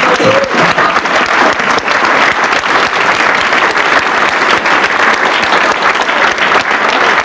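A roomful of people applauding at the end of a speech: loud, steady clapping that keeps going without letting up.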